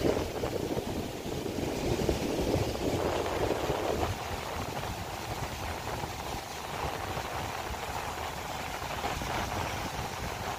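Ocean surf breaking and washing over a rocky shore, a steady rushing noise that is a little louder in the first four seconds.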